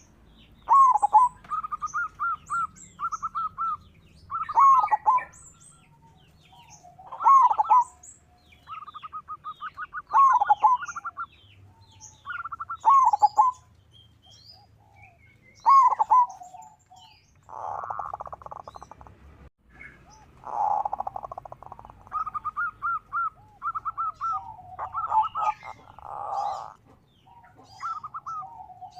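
Zebra dove (perkutut) cooing its song over and over. Each phrase is a rolling note followed by a quick run of short pulsed coos, and the phrases come every two to three seconds. Thin, high chirps of smaller birds sound between the phrases.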